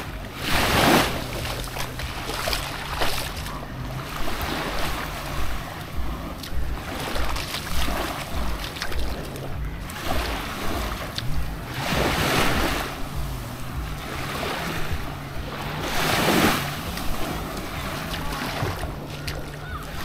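Small waves lapping and washing up onto a sandy shore, with a few louder surges as bigger washes break. A low steady hum runs underneath.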